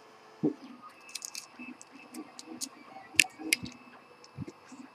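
Scattered light clicks, taps and rustles of hands working Kapton tape, wires and a zip tie on a 3D printer's heated bed, with one sharper click about three seconds in.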